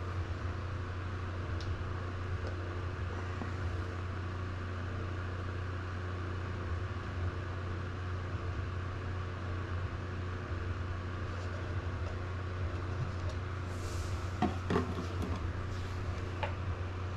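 A steady low machine hum, like a fan or motor running in the background, with a few light clicks and knocks about fourteen to fifteen seconds in.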